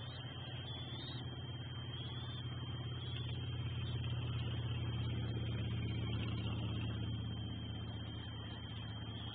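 A road vehicle driving past: a low engine and tyre rumble that swells to its loudest about five seconds in and then fades.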